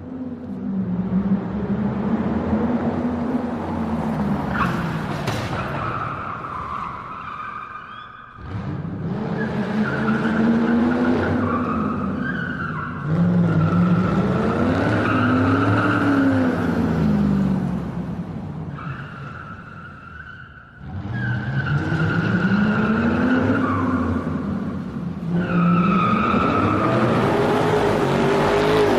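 Car tyres screeching continuously while the car drifts, with the engine revving up and down underneath. The screech comes in long passes that break off briefly about 8 seconds and 21 seconds in.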